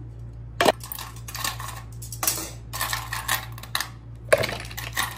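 Ice cubes dropped into a clear plastic cup, clattering and clinking against the plastic and each other, with a sharp knock about half a second in and another near the end.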